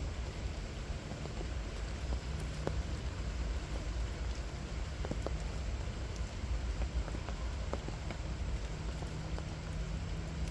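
Steady rain falling, with scattered individual drops ticking distinctly, over a steady low rumble.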